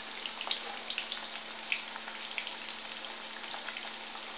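Vella cheedai, balls of rice-flour and jaggery dough, deep-frying in hot oil in a kadai: a steady sizzle with scattered small crackles and pops, the vigorous bubbling of a freshly added batch.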